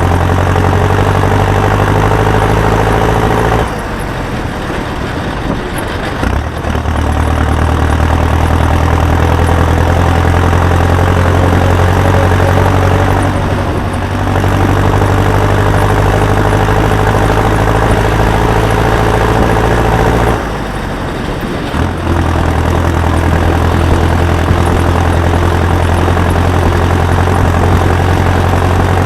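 Heavy farm-machine engine running steadily with a deep hum. It turns quieter for a few seconds twice, about four seconds in and again about twenty seconds in.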